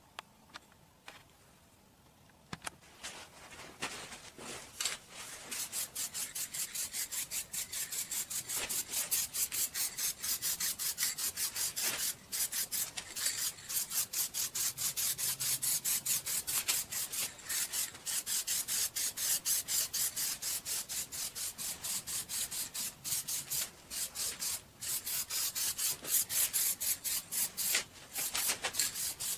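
Quick back-and-forth rubbing strokes by hand on a wooden chair frame, about four or five a second. They start a few seconds in and carry on steadily.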